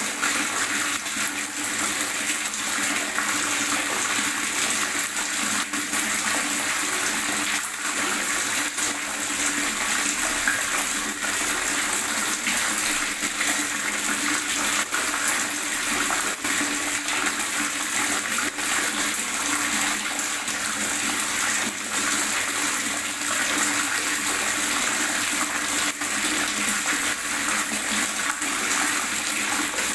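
Water gurgling steadily, with a dense patter of small bubbling ticks and no let-up.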